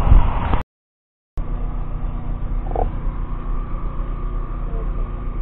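A rough, wind-buffeted outdoor rumble breaks off about half a second in for a short silent gap. Then comes an engine idling steadily with a low hum and a faint steady tone, heard inside the cab.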